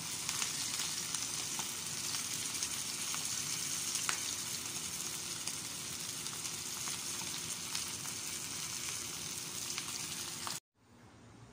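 Dried salted fish (tuyo) frying in hot oil in a pan: a steady sizzle with scattered small pops and crackles. The sizzle cuts off suddenly about a second before the end, leaving faint room sound.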